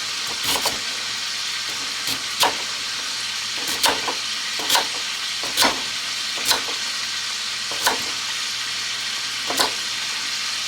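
Chicken breasts frying in a cast iron pan with a steady sizzle. About ten irregular sharp knocks of a knife chopping vegetables on a cutting board sound over it.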